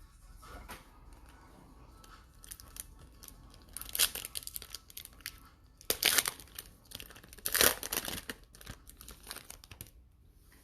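A trading card pack's wrapper being torn open and crinkled by hand, in irregular crackling bursts, loudest about four, six and eight seconds in.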